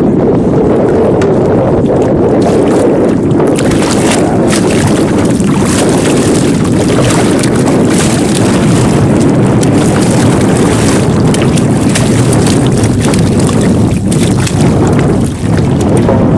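Steady wind noise on the microphone aboard a small boat, with water sloshing. From about four seconds in until about eleven seconds in, hooked fish splash and thrash at the surface as they are hauled in on a longline and netted.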